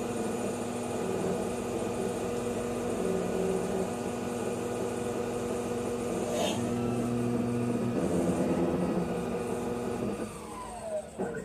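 Denford Novaturn CNC lathe spindle running at speed with a steady whine of several tones, and a sharp click about six and a half seconds in. Near the end the pitch falls as the spindle spins down at the end of the machining cycle.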